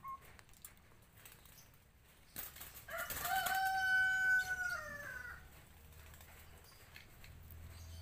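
A rooster crowing once, about three seconds in: one loud call held at a steady pitch for about two seconds, dropping at the end.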